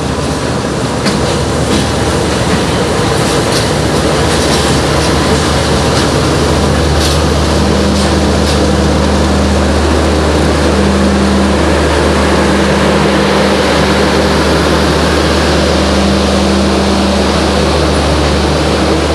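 Empty passenger coaches rolling slowly along the platform behind a diesel shunter, with a steady low hum under the rumble of the train. Scattered wheel clicks and squeaks come during the first half.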